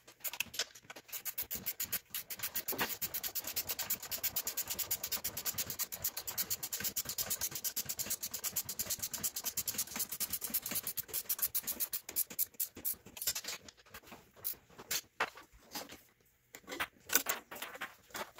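Rapid, even mechanical clicking for about ten seconds, then scattered knocks and clatters, from hand work on a truck seat's hardware as it is reassembled.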